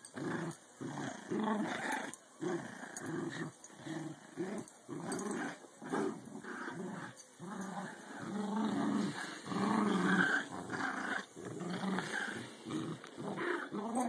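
American Eskimo dog play-growling during a game of tug: a run of short growls, about two a second. The growling sounds mean but is playful, not aggression.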